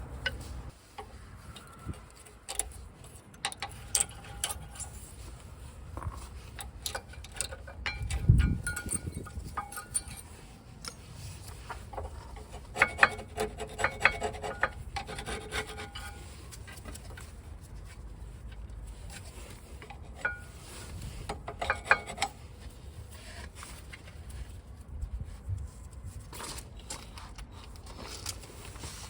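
Hand work on a car's rear brake caliper and pads: scraping and rubbing of tools on metal, with irregular clinks and knocks and a few short metallic rings.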